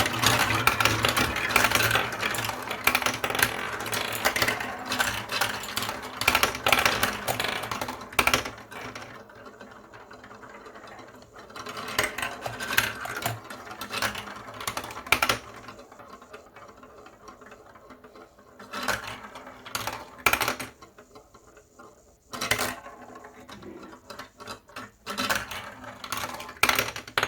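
Marbles rolling and clattering through a block-built marble run. A dense stream of clicks and rattles fills the first eight seconds or so, then thins to separate clacks and short rattles with quieter gaps between.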